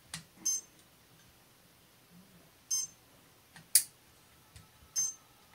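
Light clicks and knocks of hands handling a wooden motor spinning wheel, the sharpest a little before four seconds in. A short high-pitched chirp recurs evenly about every two and a quarter seconds, three times.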